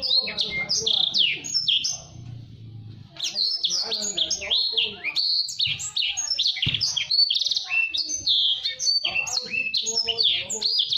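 A blacksang (blackthroat × canary cross) singing a fast, tightly packed song of rapid rising and falling chirps and trills. The song drops off briefly about two seconds in, then runs on without a break.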